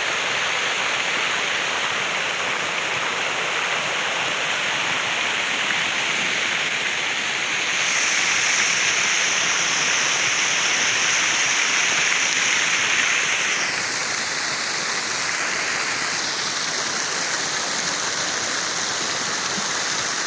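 Waterfall rushing as a steady roar of falling water. It grows a little louder and brighter about eight seconds in, then turns duller about fourteen seconds in.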